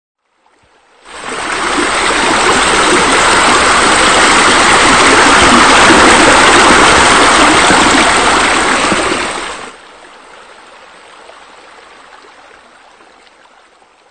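Rushing, splashing water of a spa and pool water features, coming in about a second in, loud for about eight seconds, then dropping suddenly to a faint steady wash.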